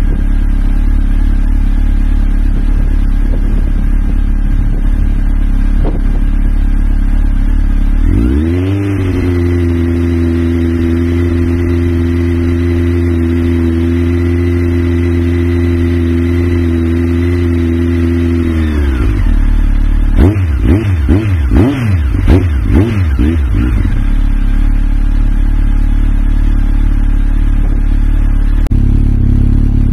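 Honda CB1300's inline-four engine idling, then revved and held at a steady higher speed for about ten seconds before dropping back to idle. This is followed by a run of quick throttle blips and a return to idle.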